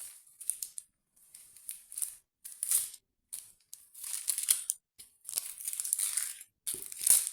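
Dry papery onion skin crinkling and tearing as an onion is peeled, in a string of short rustling bursts with brief pauses between them.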